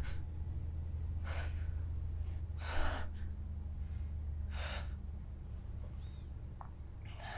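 A person breathing hard and tensely: four sharp, gasping breaths a second or two apart, over a low steady hum.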